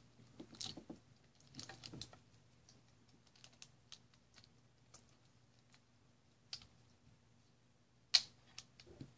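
Plastic pieces of a magnetized sectional rhombic triacontahedron puzzle clicking as they are handled, pulled apart and snapped back together by hand. Faint, scattered clicks, with a sharper snap about eight seconds in.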